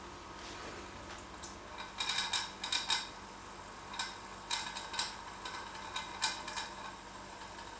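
Light clinks and clicks of lab glassware and a hotplate stirrer being handled, coming in short irregular clusters.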